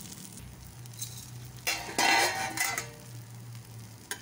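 Metal spatula scraping against an iron tawa as it is worked under a frying pancake to loosen it for flipping, one loud scrape of about a second near the middle. A faint sizzle of oil runs underneath.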